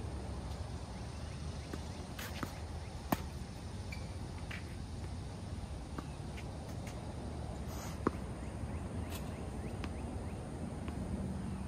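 Sharp knocks of a tennis ball off racquet strings and court during play, over a steady outdoor rumble. The two loudest knocks come about three and eight seconds in, with fainter ones scattered between.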